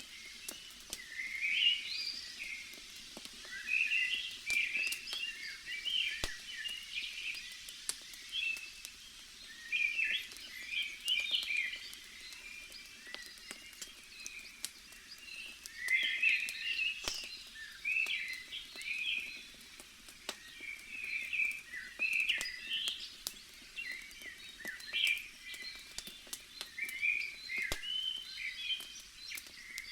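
Small birds chirping and twittering in quick runs of short calls, with scattered sharp crackles from a bonfire.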